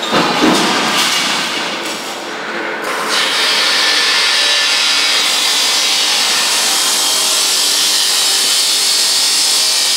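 Compressed-air spray gun spraying, a loud steady hiss of air that settles in about three seconds in after a more uneven start.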